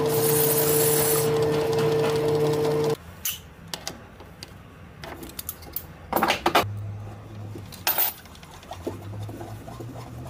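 Mini lathe running with a steady hum while a knurling tool works a brass part, with a brief hiss in the first second. The motor cuts off suddenly about three seconds in, followed by scattered metallic clicks and knocks as the chuck and workpiece are handled, and a faint low hum comes in after about six seconds.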